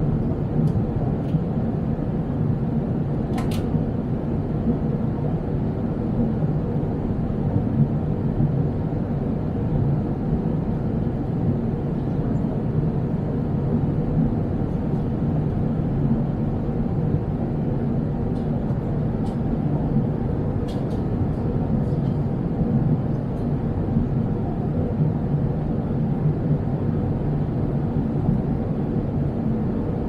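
Steady jet airliner cabin noise at cruise: the constant low rumble of the jet engines and rushing air heard from a window seat. A few faint clicks sound about three and a half seconds in and again around twenty seconds in.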